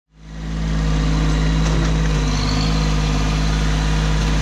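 Kubota B2601 compact tractor's three-cylinder diesel engine running steadily while it works the front loader, fading in over the first half second.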